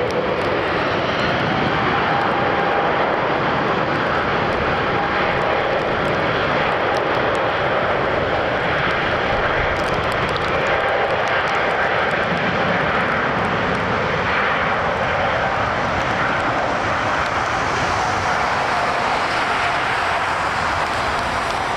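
Airbus A380's four Engine Alliance GP7200 turbofans running at taxi power: a loud, steady rush of jet noise with a faint held whine.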